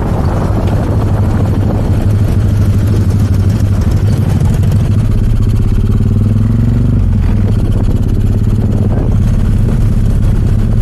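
Yamaha Y15ZR's single-cylinder 150cc four-stroke engine running under way in a steady low drone, a sound the title likens to a helicopter. The revs rise slightly about six seconds in and drop back about a second later.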